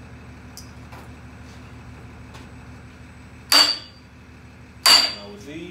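Two hammer blows on steel tooling fitted to an oilfield pump, about a second and a half apart, each with a short metallic ring. The blows drive the fitting tight so that it seals.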